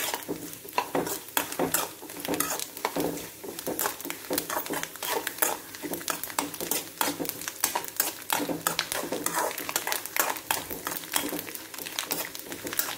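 Metal spoon stirring and scraping chopped coconut as it fries in coconut oil in a metal pan: a quick, irregular run of clinks and scrapes over a light sizzle.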